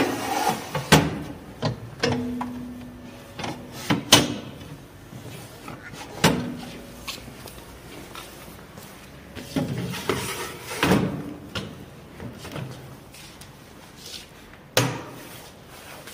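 Irregular plastic knocks and clunks as reagent bottles are set into the bottle rack of a tissue processor, with a few sharper bangs spread through.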